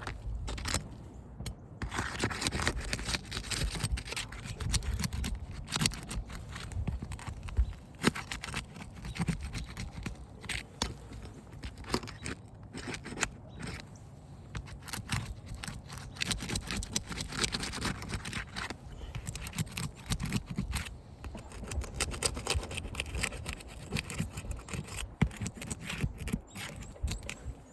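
Brittle asphalt roof shingle tabs being pried up with a metal hand tool to break their seals: irregular scraping and crackling with scattered clicks.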